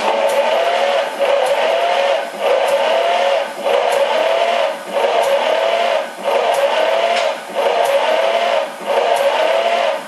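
Starter motor cranking a Studebaker 289 V8 during a cold compression test, a steady whine that starts abruptly and sags about every 1.2 seconds as the engine turns over against compression.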